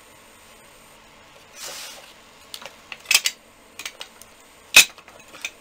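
A short scratchy rustle about one and a half seconds in, then a string of sharp clicks and light knocks of small hard craft tools and objects handled on a desktop, the loudest near the end.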